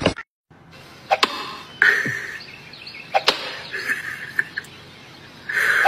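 A dog barking in short, high-pitched yaps, several times, with a few sharp clicks between them.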